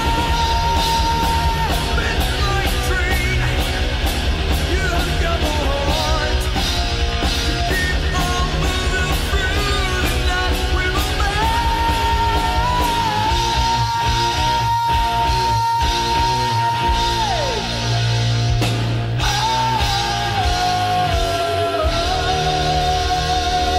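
1980s heavy metal band playing: distorted electric guitars, bass and busy drums under a singer's shouted vocals and long held high notes.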